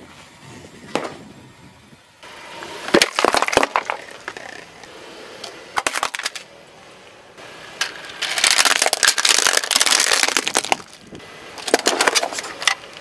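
Car tyre rolling over and crushing objects on asphalt, among them a plastic toy package: a series of sharp cracks and crunches about three seconds in, a short crackle near six seconds, a long loud crackling crunch from about eight to eleven seconds, and more cracks near the end.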